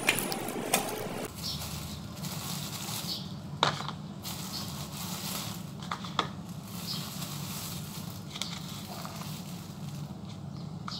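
Plastic carry bag rustling and crinkling while green citrus fruits are lifted out and set into a plastic bowl, with a few short knocks as they land, over a steady low hum.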